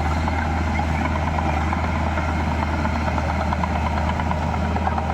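Heavy diesel earthmoving machinery running steadily, a constant deep engine hum with no change in speed.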